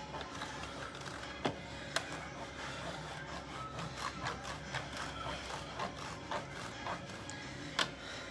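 A block of Parmesan grated by hand across the fine perforated metal zesting plate of a citrus juicer and press: light, irregular scraping strokes with a few sharper clicks.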